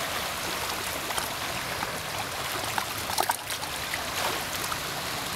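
Shallow seawater washing and trickling over flat shoreline rocks: a steady watery hiss with a few small splashes and drips.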